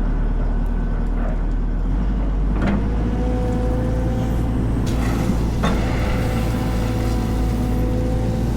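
Heavy construction machine's diesel engine running steadily, with a couple of sharp metallic knocks about two and a half and five and a half seconds in.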